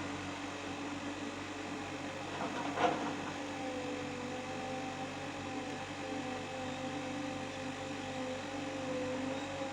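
Excavator engine running steadily, with one short clank about three seconds in. Soon after, a steady higher whine sets in over the engine.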